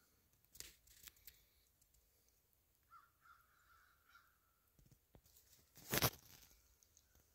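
Footsteps crunching through dry oak leaf litter, a few light crunches near the start and the loudest about six seconds in. A faint distant bird call, about a second long, comes between them.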